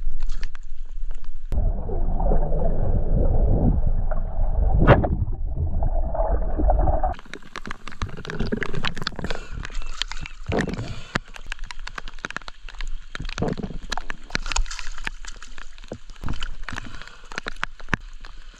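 Water heard from a camera at the surface: first, for about five seconds, dull, muffled gurgling and sloshing as it goes under the water, then, from about a third of the way in, a brighter splashing and a dense patter of raindrops on the water's surface.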